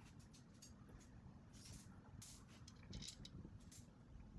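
Near silence, with a few faint light clicks as a steel washer is fitted onto a bolt at the leg pivot.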